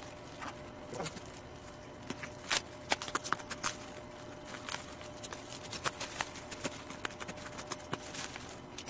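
Bubble wrap and plastic packing tape crinkling and crackling with irregular sharp clicks as a parcel's wrapping is cut and pulled open with a utility knife.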